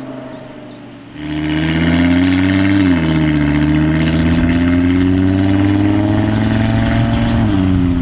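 Audi RS3's turbocharged five-cylinder engine accelerating hard away: the note rises, drops at an upshift about three seconds in, climbs again for several seconds, then falls near the end.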